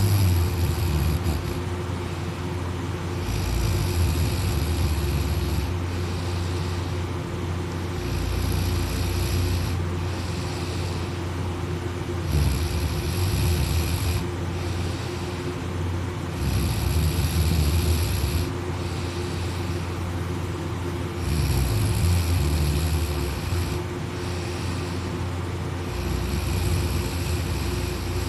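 A sleeping person snoring and breathing deeply, about six slow breaths, one every four to five seconds, each a couple of seconds of rasping hiss, over a steady low hum.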